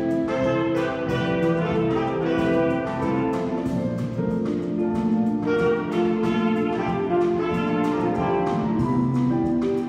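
Live jazz combo playing: alto saxophone and trumpet playing a line together over electric guitar, electric bass, piano and drum kit, with steady cymbal and drum strokes.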